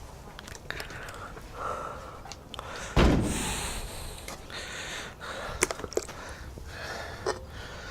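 Handling noises from patching a plastic water butt: scattered clicks and rustles, with one loud thump about three seconds in followed by a brief hiss.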